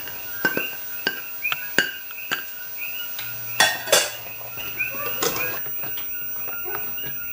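A spatula clinking, knocking and scraping against a plate and a deep frying pan as chopped onion is scraped into the pan and stirred through the vegetables, with two louder clanks a little past halfway.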